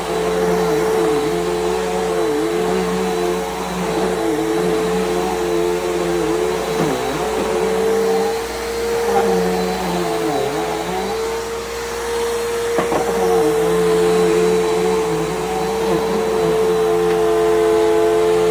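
Bissell PowerGroom bagless upright vacuum cleaner running on carpet, a steady motor whine that dips briefly in pitch every couple of seconds as it is pushed along.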